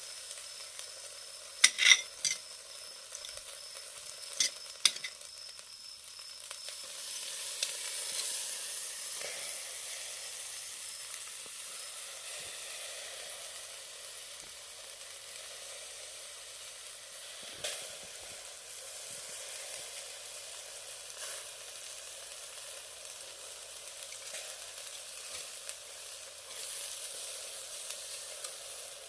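Chicken thigh and leek sizzling over a charcoal shichirin grill as a steady crackling hiss. Sharp clicks or pops stand out about two seconds in, twice more a few seconds later and once near the middle.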